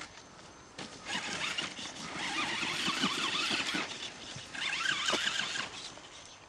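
Blackfoot radio-controlled monster truck's electric motor and gears whining as it is driven across snow, in three bursts of throttle, the middle one the longest and loudest.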